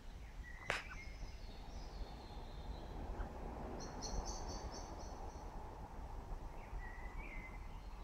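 Woodland birds calling: scattered short high chirps and a quick trill of repeated high notes about four seconds in, over a steady low rumble. A single sharp click sounds just under a second in.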